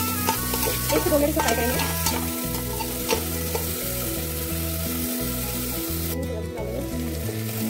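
Green peas and onion frying in ghee in a steel pot, sizzling, while a perforated steel spatula stirs them and scrapes against the pot, most busily in the first few seconds. Soft background music with held low notes plays underneath.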